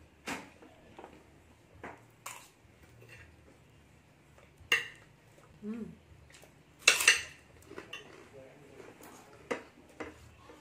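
A metal spoon clinking and scraping against a ceramic plate of rice, in several separate sharp clinks. The loudest is a cluster about seven seconds in.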